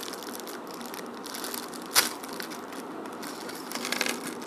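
Clear plastic bag of small building blocks crinkling and rustling as it is handled and opened, with one sharp snap about two seconds in and a flurry of crackles near the end.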